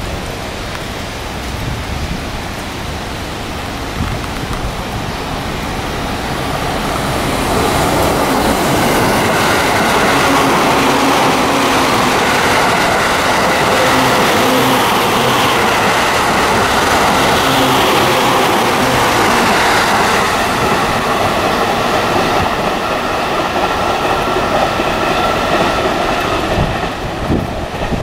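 JR East E531-series electric train passing at speed, wheels clattering and a steady whine over a hiss. It builds up, is loudest for about ten seconds as it goes by, then fades away.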